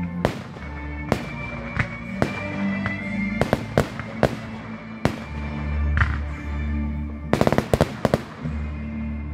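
Aerial fireworks bursting with sharp bangs about once a second and a quick run of cracks near the end, over music playing underneath.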